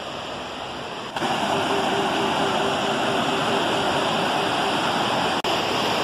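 Rushing water of a rocky river's rapids, a steady noise that gets louder about a second in and briefly cuts out near the end.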